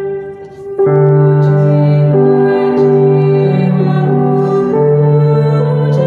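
Electronic keyboard playing sustained chords as a hymn introduction. The sound dips briefly in the first second, then a fuller chord comes in and the chords change about every second.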